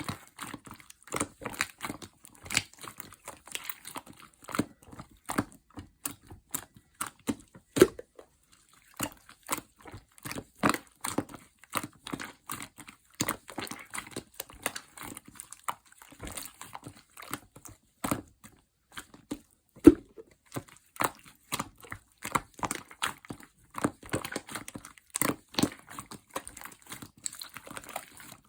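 Red translucent slime mixed with clay being squished and pressed by hand, giving a continuous run of irregular sticky clicks and pops, several a second.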